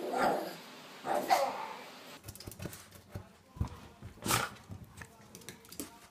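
Dogs giving short whining barks: two in the first second and a half, then one sharp bark about four seconds in.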